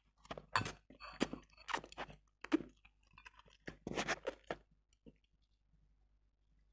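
A person slurping and chewing saucy black bean noodles (jajangmyeon) in a run of short wet mouth sounds. They come thickest in the first two and a half seconds and again around four seconds in, then die away.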